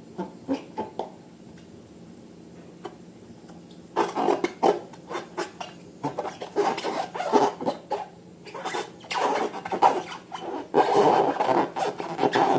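Slime and balloons being handled by hand, making squishing and rubbing noises: a few soft clicks at first, then from about four seconds in a long, irregular run of squelching, rubbing sounds.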